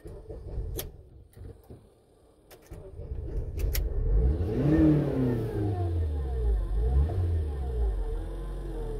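Honda Accord engine starting about three seconds in, after a few short clicks, then running with its revs rising and falling several times: the engine being run for a crankshaft-position-sensor pattern relearn after a new crank sensor.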